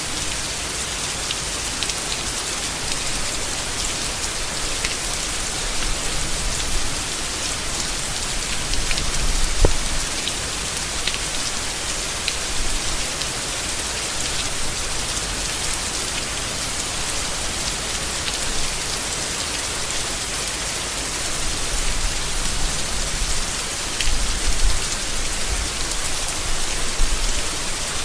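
Steady rain falling on leaves, an even hiss with scattered individual drops ticking through it and brief low rumbles of heavier gusts a couple of times.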